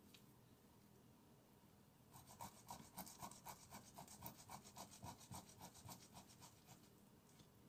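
Boiled potato being grated by hand on a stainless steel box grater: a faint run of quick rubbing strokes, about four a second, starting about two seconds in and stopping near the end.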